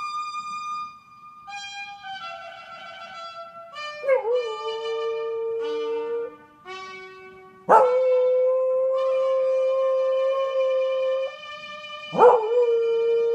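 Pembroke Welsh corgi howling along with trumpet theme music from a television. Held trumpet notes come first; then, about four seconds in, the dog joins with three long howls, each sliding down in pitch at the start and then held steady.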